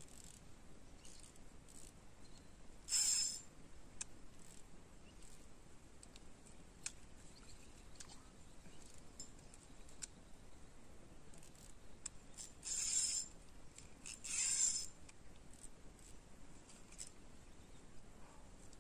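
Spinning reel being cranked on an ultralight fishing rod, its mechanism giving faint quick ticks, with three short hissing zips of line running off the reel, one about three seconds in and two close together a little before the end.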